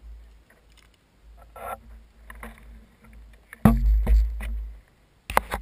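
A heavy thud about two-thirds of the way in, with a deep rumble lasting about a second, then a few sharp cracks near the end, over a low steady rumble.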